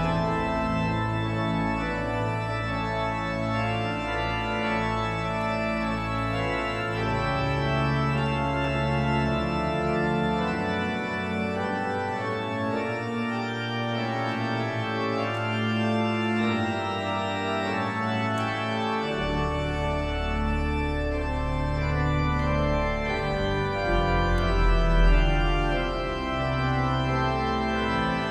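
Organ music: sustained chords held for several seconds at a time. Deep bass pedal notes drop out about a third of the way in and return about two-thirds in.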